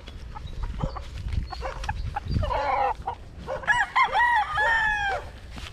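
Gamefowl roosters crowing: a shorter crow about two and a half seconds in, then a louder crow from about three and a half seconds in that ends in a long held note.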